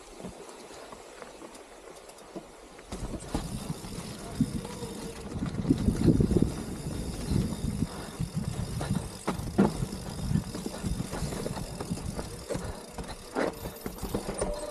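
Mountain bike riding down a rough trail: a steady rumble of tyres and ground noise with frequent clattering knocks from the bike over bumps, getting louder about three seconds in.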